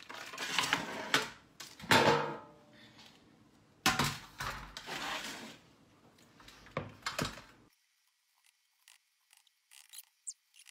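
Metal baking trays being slid across and set down on a glass-top ceramic hob, with a series of scraping and clattering knocks. Near the end, a few faint light clicks of a spoon against the ceramic mixing bowl as dough is scooped.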